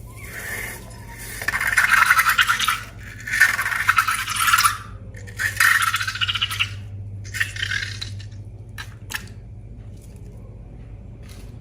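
Four bursts of fine, gritty rattling and scraping, like small hard bits shaken or stirred in a container, followed by a few light clicks.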